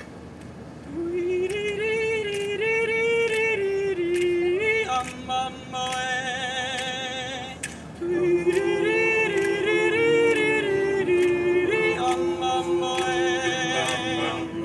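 Men's a cappella group singing unaccompanied in harmony, in long held notes with a melody line above the other voices. The voices come in about a second in and break off briefly just before the eight-second mark.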